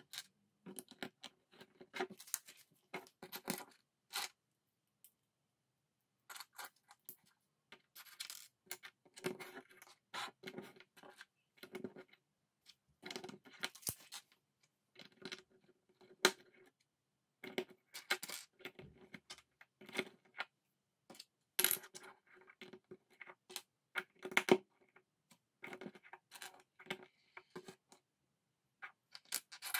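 Plastic LEGO bricks clicking together and being picked from a loose pile and set down on a hard tabletop: quick, irregular clicks and taps, with a short pause about four seconds in.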